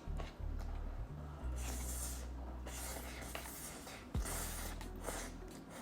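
Close-miked eating sounds: slurping and chewing of spicy ramen noodles with melted cheese, in two longer slurps, with a sharp click about four seconds in, over a low background music bass.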